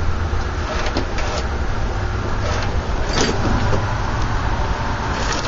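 Rototiller belt-engagement lever on a mini bike being worked by hand: clicks and metal scraping from the clutch linkage as it engages and disengages, over a steady low hum.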